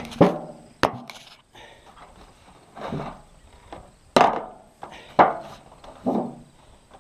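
A series of knocks and thuds on a wooden roof ladder and steel roofing panels as someone climbs up the roof: a sharp knock just after the start, a click, then several heavier thuds about a second apart.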